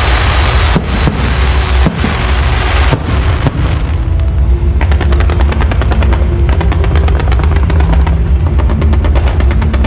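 Firecrackers going off: a hiss with a high whistle fades in the first two seconds, then a few separate loud bangs, and from about five seconds in a dense, rapid, continuous crackle, as from a long string of firecrackers.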